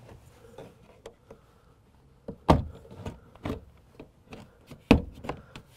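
Plastic retaining clips of a car door panel popping loose one after another as the panel is pulled off the door: a string of about five sharp snaps, the loudest near the end.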